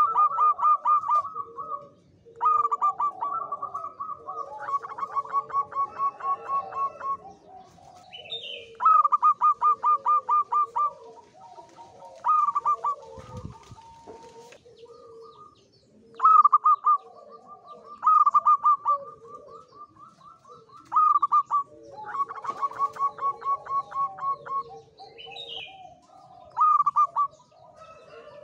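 Male zebra dove (perkutut) singing: phrases of quick, staccato cooing notes, each run lasting one to three seconds and repeated every few seconds. It is a male in high breeding condition. Fainter lower-pitched calls from other birds run underneath, with the odd higher chirp.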